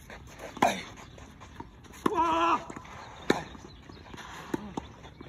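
Tennis ball struck back and forth in a rally on a clay court: about four sharp racket hits, roughly one every second and a half. About two seconds in, a short pitched cry sounds with one of the hits.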